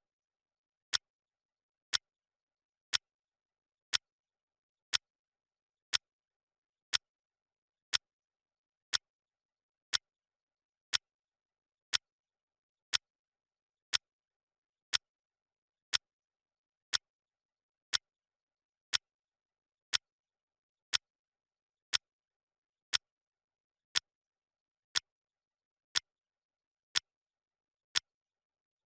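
Clock ticking: one short, sharp tick each second, with silence between the ticks.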